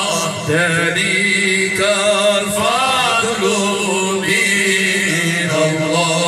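A man sings a solo mawal of Moroccan Sufi devotional praise (amdah) into a microphone: a slow, ornamented chant line that winds up and down over a steady low held tone.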